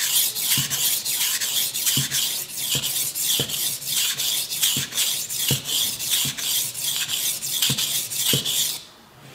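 Cheap soft-steel IKEA kitchen knife blade stroked rapidly back and forth on a wet, cheap hardware-store sharpening stone: an even, rhythmic rasping scrape of about three strokes a second that stops abruptly near the end. These are the lighter refining passes that smooth and even out the edge after a burr has been raised.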